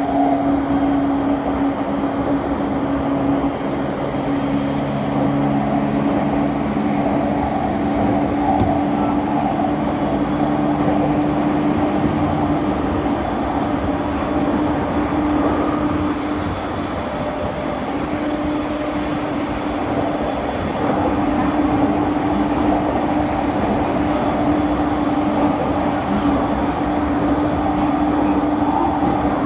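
Running noise of a Shōnan–Shinjuku Line commuter train heard from inside the carriage at speed: a steady rumble with a constant hum. A few lower steady tones fade out about twelve seconds in.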